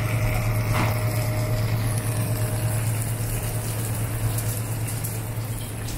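Marinated fish frying in oil on a large flat griddle (tawa): a continuous sizzle over a steady low hum of kitchen equipment.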